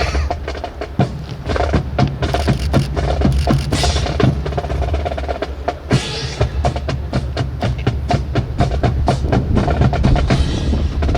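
Drum corps playing a marching cadence on snare and bass drums, with dense sharp wooden clacks, to accompany a rifle drill.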